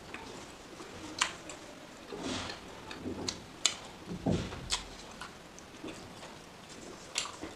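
Fingers tearing and pulling apart curried chicken pieces in a pan of oily sauce, with chewing mouth sounds: irregular sharp clicks and soft squishes.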